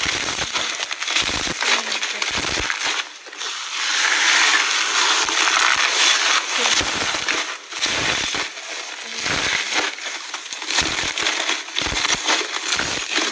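Hands squeezing and kneading airy, bubbly slime in a plastic tub: dense crackling and popping with many sharp clicks, thickest from about four to seven and a half seconds in.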